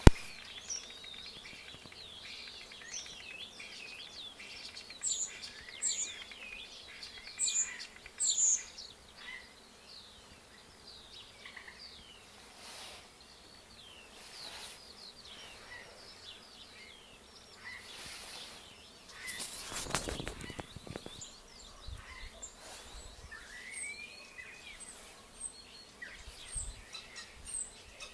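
Several small birds chirping and singing: many short whistled chirps and trills, the loudest high chirps coming about 5 to 9 seconds in. About two-thirds of the way through, a brief rushing noise rises above the birds.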